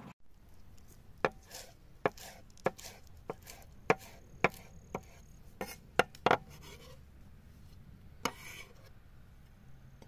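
Kitchen knife chopping fresh green herbs on a wooden cutting board: about a dozen sharp, uneven knocks of the blade against the board, roughly two a second, starting about a second in and stopping a little past six seconds, with one last knock near eight seconds.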